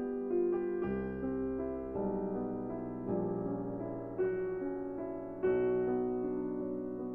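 Background piano music: a slow, gentle piece of sustained chords, a new chord struck about every one to two seconds and left to ring.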